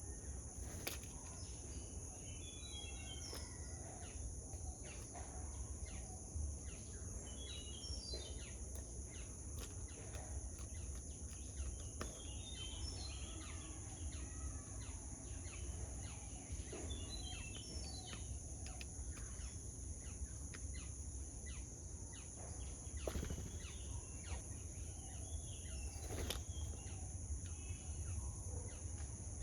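Outdoor ambience with birds chirping in short bursts every few seconds, over a steady high-pitched drone and a low rumble.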